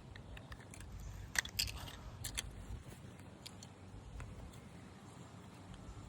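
Handling noise close to the microphone: a handful of sharp clicks and crackles, bunched between about one and two and a half seconds in, over a faint steady background.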